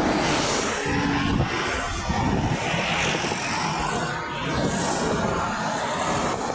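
A large bus and then a convoy of SUVs driving past close by: a steady rush of tyres and engines that swells as each vehicle goes by.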